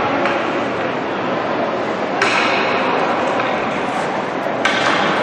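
Ice hockey rink during warm-up: a steady rush of skates on ice and arena noise, with a sharp knock of a puck strike about two seconds in and another near the end, each ringing on briefly in the big hall.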